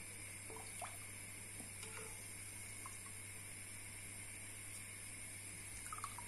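Wooden spoon stirring simmering chicken broth in a stainless steel pot: faint liquid swishing with a few light knocks of the spoon against the pot, a small cluster of them near the end, over a steady low hum.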